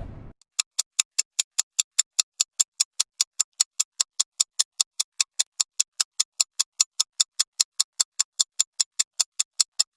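Countdown timer sound effect: an even, fast ticking of sharp clicks, about four a second, starting about half a second in.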